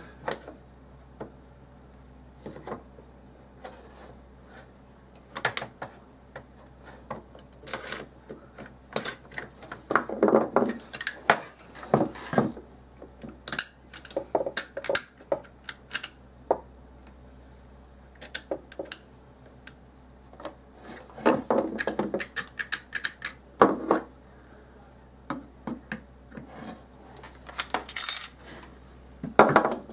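Irregular metallic clicks, clacks and light rattles of a Mossberg Maverick 88 pump shotgun's trigger assembly and receiver being handled as the trigger group is worked into place, its small parts slipping out of position.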